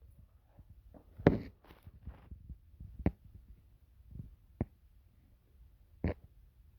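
Scattered knocks and clicks in a small room. The loudest comes about a second in, a few softer ones follow, then single sharp clicks at about three, four and a half and six seconds.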